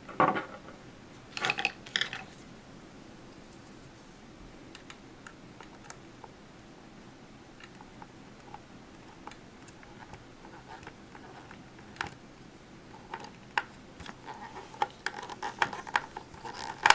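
Small screwdriver turning tiny screws into a floppy disk drive's circuit board: faint, scattered clicks and taps, with a few louder handling noises in the first two seconds, one sharp click about twelve seconds in and a quick run of clicks near the end.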